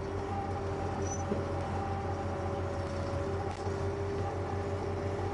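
Tractor engine running steadily while pulling a Kubota BV4160 round baler across the hillside: an even, unbroken drone with a low hum and a few steady tones.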